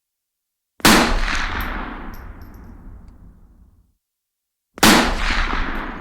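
Two rifle shots about four seconds apart, each a sharp crack followed by a long echoing tail that dies away over about three seconds. A few faint high clicks follow the first shot.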